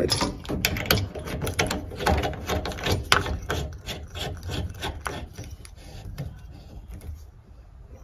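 A braided washing-machine hose's coupling being handled and screwed onto the cold-side flush valve of a Rinnai tankless water heater: a quick run of scraping clicks and rubs of metal on metal, thinning out and fading over the last couple of seconds.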